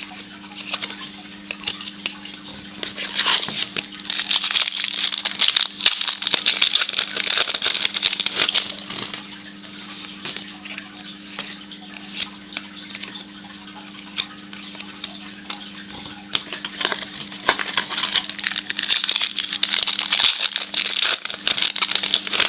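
Trading-card pack wrappers crinkling and tearing and cards being flicked and slid through the hands, in two busier stretches, a few seconds in and again near the end. A low steady hum underneath.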